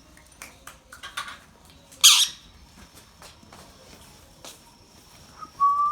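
Indian ringneck parrot giving one harsh squawk about two seconds in, after a few faint clicks, then a short whistled note near the end.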